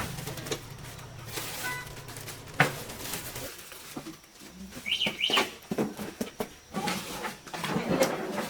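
Two short bird chirps about five seconds in, with a sharp knock a couple of seconds earlier and a low steady hum in the first few seconds.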